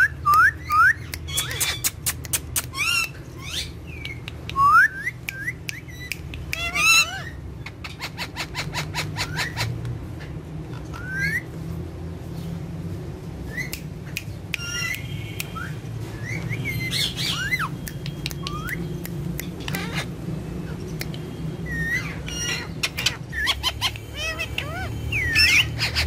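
Indian ringneck parakeets chirping and squawking in short, rising calls, scattered through the whole stretch among sharp clicks, over a steady low hum.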